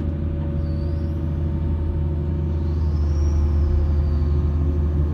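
Hitachi EX230LC-5 excavator's diesel engine running steadily, with a faint high whine that rises and falls about midway; the engine gets slightly louder in the second half.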